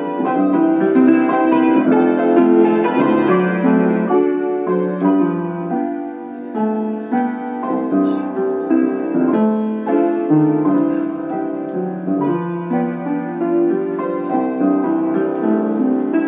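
Solo piano playing a melody over chords, with notes changing every fraction of a second and no drums.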